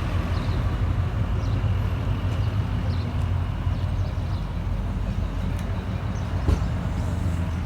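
Air-cooled flat-four engine of a 1967 VW double cab bus running steadily at low speed, a low even hum.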